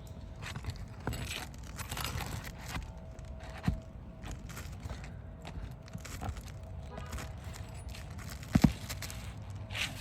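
Roofing shingles being handled and shifted, making rustling, scraping and crinkling sounds with scattered taps. A sharp double knock comes about eight and a half seconds in.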